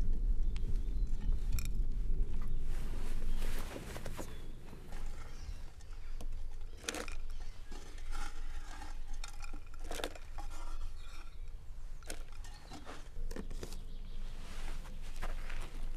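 Glass jar handled over a terracotta saucer as soil is shaken out of it: scraping, light clinks and a few sharper knocks, the clearest about seven and ten seconds in. A low rumble fills the first three and a half seconds.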